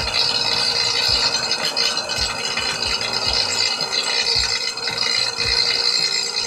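Homemade shredder driven by a water-pump motor, running and chopping banana leaves: a loud, steady rattling whirr over a constant motor hum.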